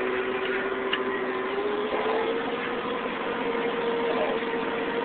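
Tucker 2000 snowcat grooming a trail, heard from inside its cab: a steady engine and drivetrain drone with a high hum whose pitch rises a little about two seconds in.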